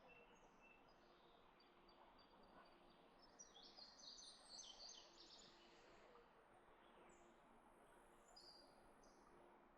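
Faint outdoor ambience with small birds chirping: a cluster of quick high chirps near the middle and a few more near the end.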